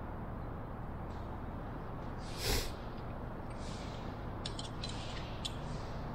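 Small metal hinge pieces and a marking tool handled on a workbench: several light clicks in the second half. About halfway through there is a short breathy hiss. A steady low hum runs underneath.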